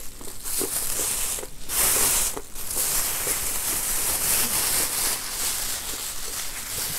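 Thin plastic bag rustling and crinkling as it is handled and opened, a steady crackling hiss with a couple of brief pauses in the first few seconds.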